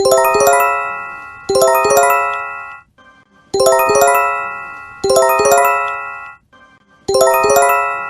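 Japanese J-Alert emergency warning chime for earthquake and tsunami alerts. Each phrase is a quick run of about three bell-like notes that ring out and fade. The phrases come in pairs about a second and a half apart, with a short pause after each pair, repeating.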